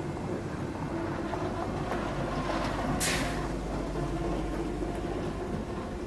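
Feed mill machinery running with a steady mechanical rumble and hum. A short sharp hiss comes about halfway through.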